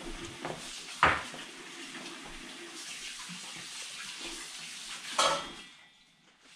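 Dishes and cutlery clinking at a dinner table as food is served: a sharp clink about a second in and another near five seconds, over a steady hiss.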